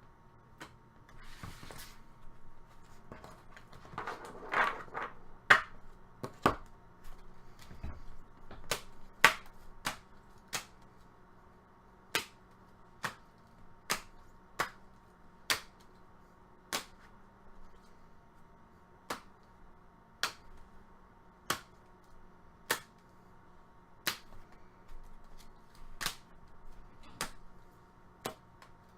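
Trading cards being set down one after another on a table, each a sharp click, roughly one a second, with some shuffling rustle near the start.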